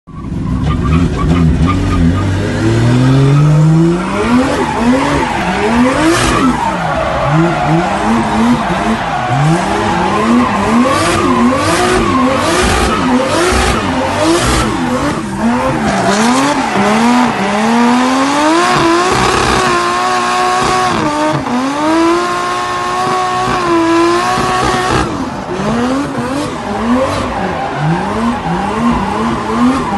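The swapped 1.5JZ turbocharged straight-six in a Nissan S14, heard from inside the car while drifting. The engine revs climb steadily over the first few seconds, then rise and fall again and again, with stretches held at high revs, over squealing tyres.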